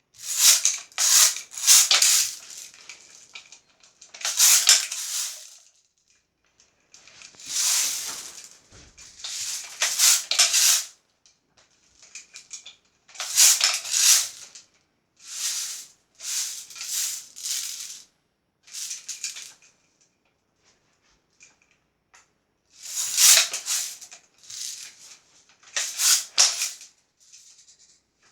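Daisy Red Ryder lever-action BB gun being spin-cocked over and over: loud bursts of rattling and clacking as the gun is twirled and the lever swings, about a dozen bursts with short pauses between.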